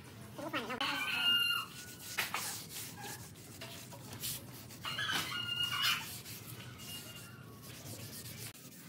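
A pad rubbing back and forth over the rough, cracked surface of an old railway sleeper in short scraping strokes. Two short pitched animal calls sound over it, about a second in and again about five seconds in.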